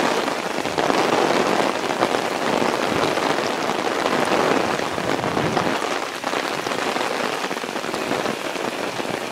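Rain falling steadily on garden plants and foliage during a summer storm, an even hiss of rain.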